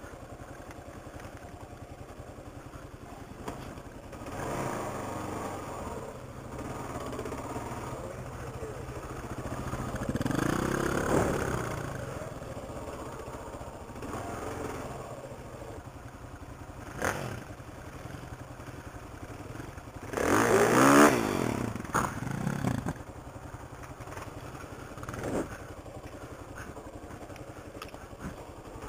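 Kawasaki KLR 650's single-cylinder four-stroke engine running while riding a dirt trail, revving up about ten seconds in and again, louder, around twenty seconds in.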